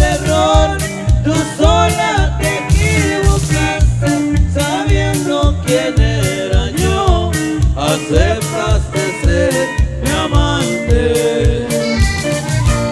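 Live band dance music: an accordion plays the melody over a steady beat with bass and drums.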